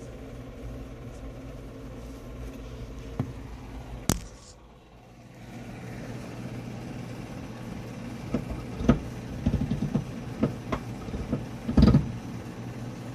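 Electric drill running steadily as it bores a small hole through the truck's sheet-metal floor. The hum drops away briefly about four and a half seconds in, then picks up again, with scattered knocks and clicks.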